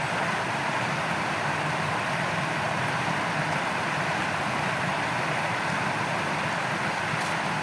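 Shallow stream water flowing over its bed in a steady, even rush.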